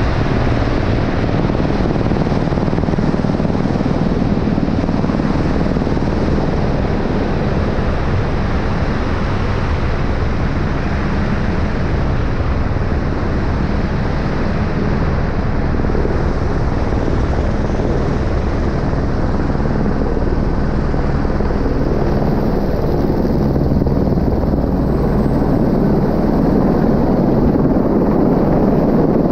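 Helicopter turbine engine and rotor running steadily and loudly, with a constant low droning hum.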